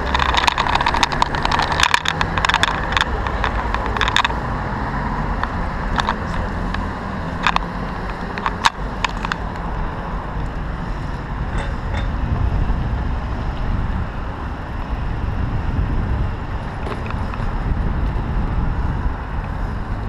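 Riding a bicycle through city traffic with the camera mounted on the bike: steady wind and road rumble, with clusters of rattling clicks from the bike over the first four seconds and again around seven to nine seconds in, and cars passing.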